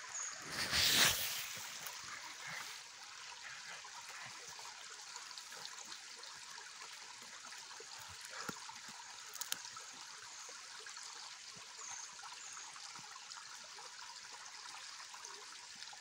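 Shallow creek water trickling steadily over stones, with a short louder rustling noise about a second in.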